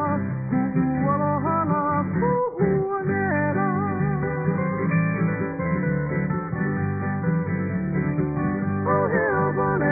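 Background music with guitar playing.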